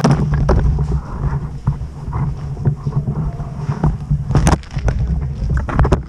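Low rumbling handling and movement noise on a body-worn camera's microphone, with scattered sharp clicks and knocks: a strong one past the middle and a quick run of them near the end.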